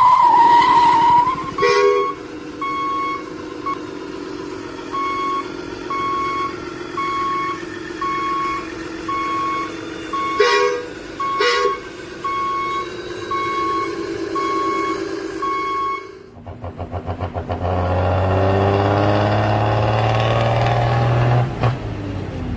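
Vehicle reversing alarm beeping steadily about once a second over a low engine hum, with two short sharp bursts partway through. Near the end the beeping stops and an engine runs steadily.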